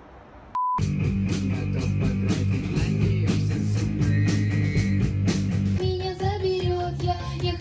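A brief beep about half a second in, then a band plays rock music: drums keep a steady beat over heavy bass and guitar. A voice sings over it near the end.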